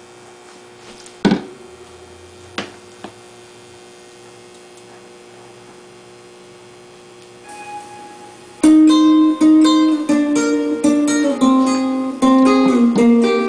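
A few sharp clicks in a quiet room, then about nine seconds in an acoustic guitar starts playing a picked melody, played back from a video on the computer.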